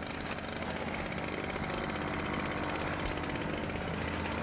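Armoured vehicle's engine running steadily, with no break through the whole stretch.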